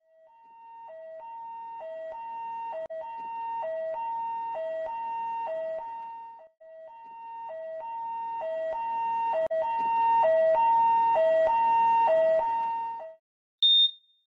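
Two-tone ambulance siren alternating between a high and a low note, about one cycle a second, growing steadily louder as if approaching. It breaks off for a moment midway, resumes louder and then cuts out, followed by a single short high beep.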